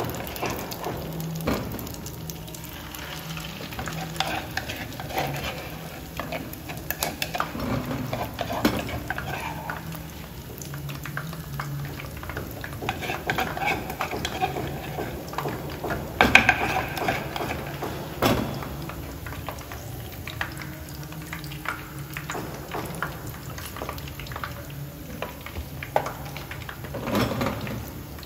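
Akara bean fritters deep-frying in a pan of hot oil, the oil sizzling and crackling steadily. A metal spoon knocks sharply a couple of times about two-thirds of the way through.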